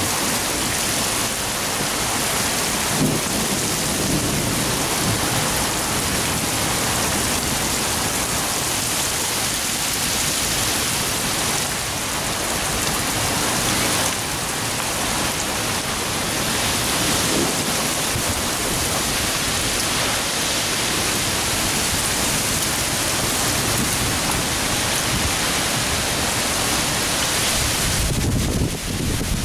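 Heavy thunderstorm rain pouring down in a steady, dense hiss. Near the end, gusting wind buffets the microphone.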